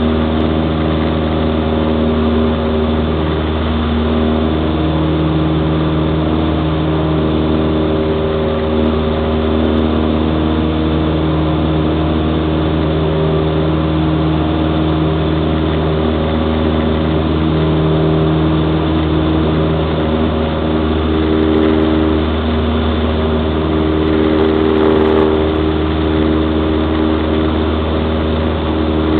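Cessna 172's single piston engine and propeller droning steadily in flight, heard from inside the cockpit. It is a constant deep hum with higher tones that swell and fade every few seconds.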